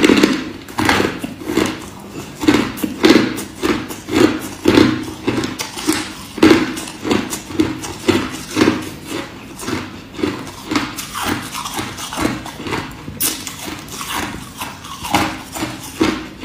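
Crushed ice being chewed close to the microphone: a steady run of crisp crunches, about two a second.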